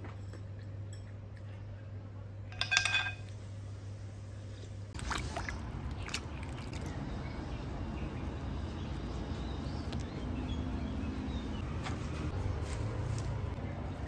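Water sloshing and splashing as lettuce leaves are washed by hand in a bowl of water and lifted out, starting about five seconds in. Before that, a low steady hum and one brief clink of a utensil on a dish.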